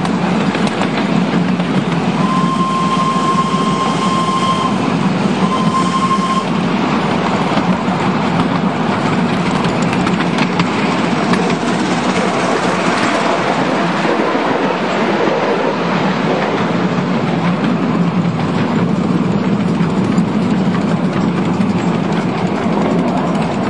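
Miniature 7¼ inch gauge single Fairlie steam locomotive and its carriages running steadily along the track, wheels clattering over the rails. The engine's whistle sounds twice a couple of seconds in, one long blast then a short one.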